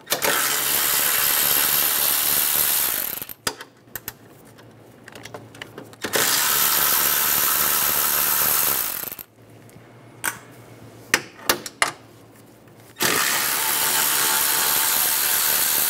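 Power tool spinning a 10 mm socket, running in three bursts of about three seconds each as it backs out bolts, with a few sharp clicks in the pauses between.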